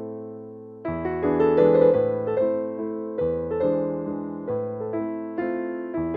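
Background piano music: a gentle melody of struck notes over chords, each fading away. A lull in the first second gives way to a new phrase.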